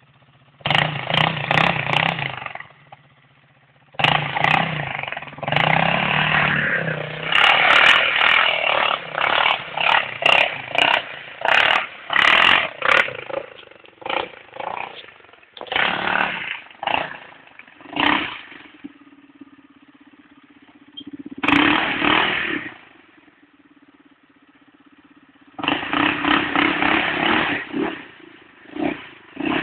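Sport quad bike (ATV) engine revving hard in repeated throttle bursts, with idling between them, heard from a distance. There is a long run of bursts early on and another near the end, with a quieter spell of steady idling in between.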